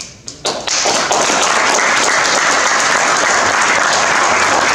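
Audience applauding: a few scattered claps, then steady full applause from about half a second in.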